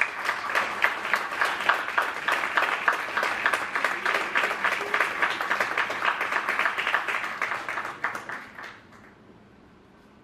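Audience applauding: a dense patter of many hands clapping that fades and stops about nine seconds in.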